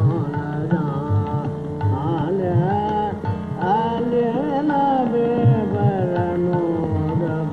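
Hindustani classical vocal in raag Gurjari Todi: a man sings sliding, wavering melodic phrases and some held notes over a steady tanpura drone, with tabla strokes beneath.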